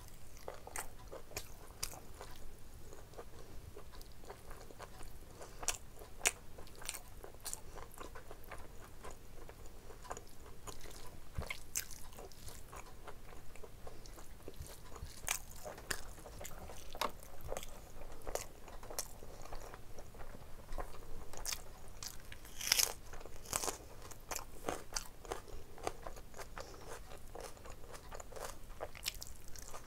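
Close-up eating sounds of a person eating curry and rice by hand: chewing and wet mouth clicks in a steady, irregular run, busiest about three-quarters of the way through.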